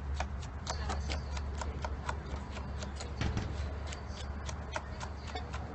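Chef's knife julienning a red bell pepper on a wooden cutting board: quick, even strikes of the blade through the pepper onto the board, about four or five a second, over a low steady hum.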